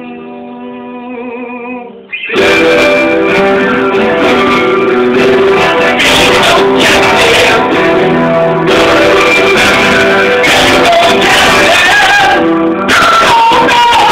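Electric guitar played at home: quieter held notes at first, then loud strummed chords from about two seconds in. A man's voice joins in singing near the end.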